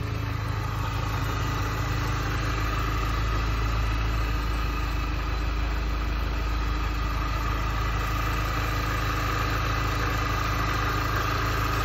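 2004 Mini Cooper S MC40's supercharged 1.6-litre four-cylinder engine idling steadily after a start. A thin high whine rides over the idle and grows stronger in the second half.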